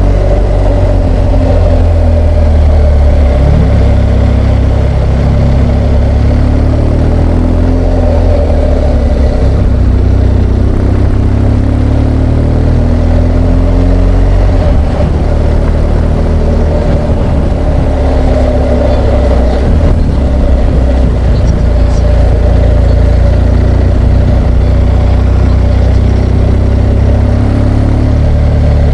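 BMW R1200GS Adventure's boxer-twin engine running under way, its pitch rising and falling with throttle and gear changes.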